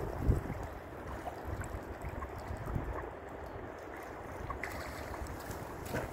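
Wind buffeting the microphone, strongest at the start, over water lapping and small splashes from mute swans feeding at the bank. Just before the end a swan rears up and beats its wings once.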